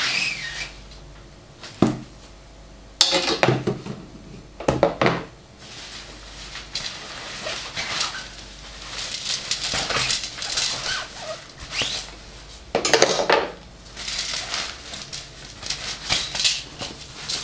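Handling noise as feeder rod sections are slid out of their soft cloth cover and laid down: rustling, with several sharp clacks of the sections knocking together.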